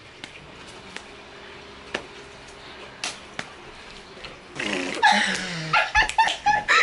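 A few sharp hand slaps and snaps, about five spread over four seconds, from two girls' handshake routine, followed by voices exclaiming near the end.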